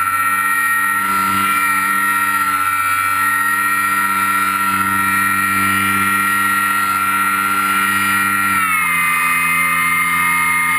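RC plane's motor and propeller running at a steady high whine, picked up by a camera mounted on the plane's belly. About eight and a half seconds in the pitch drops slightly as the throttle is eased back.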